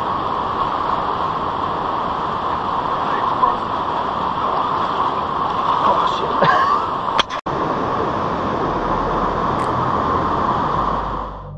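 Steady rush of river water flowing over stones in a rocky gorge. The sound breaks off for a moment about seven seconds in, then the same rush carries on.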